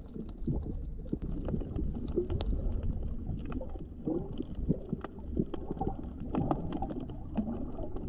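Underwater sound picked up by a submerged camera: a steady low rumble of moving water with many scattered clicks and short low pops.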